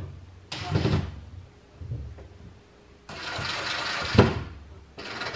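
Cordless drill driving screws into the cabinet floor in short runs, the longest lasting about a second and ending in a sharp click as the screw seats.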